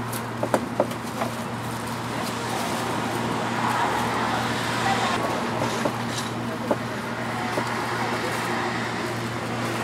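Street background noise: steady traffic and a constant low machine hum, with a few sharp knocks near the start and one more later.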